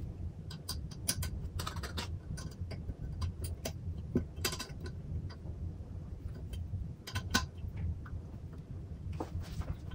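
Scattered light clicks and a few short scrapes as fingers and a thin tool work at the hinge of an aluminium monitor stand, over a low steady hum.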